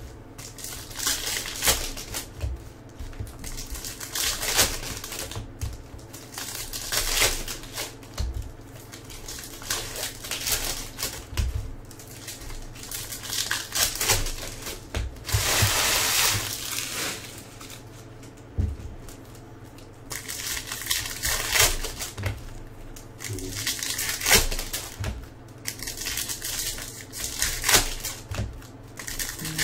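Topps Chrome trading-card pack wrappers crinkling and tearing open, mixed with the rustle and flick of cards handled between fingers. The sound comes as a run of short bursts, with one longer crinkle about halfway through.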